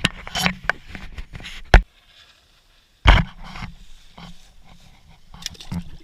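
Scattered knocks and scrapes as a lit cannon fuse is handled and put into a bucket of water, with a sharp knock a little under two seconds in, a second of silence, then another loud knock and quieter rustling.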